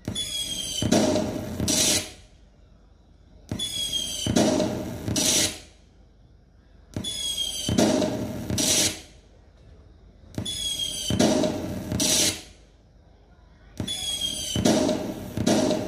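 Electric LED firework light's built-in speaker playing a recorded firework effect on a loop. Each cycle is a short whistle, then a bang and a second, louder burst that fades out, repeating about every three and a half seconds, five times over.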